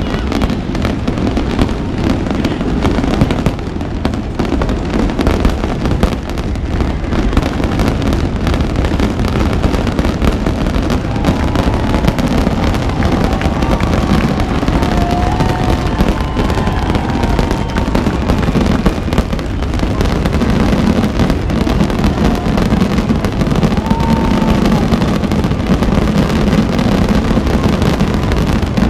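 Fireworks display going off in a continuous dense barrage of overlapping bangs and crackling, with a few short high whistles in the middle.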